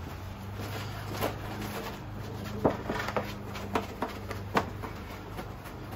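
Microfiber towel rubbed by hand over a plastic headlight lens, buffing off dried rubbing compound, with several short scuffs against a steady low hum.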